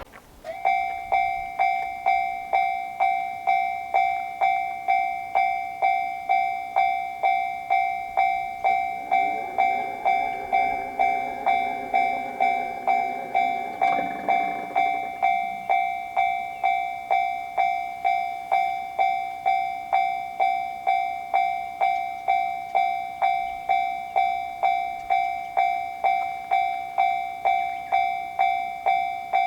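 Japanese level-crossing warning bell, the electronic 'kan-kan' alarm, starting about half a second in and ringing in a steady rhythm of a little under two strikes a second: the crossing is active, warning of an approaching train. A lower pitched hum sounds under it for several seconds in the middle.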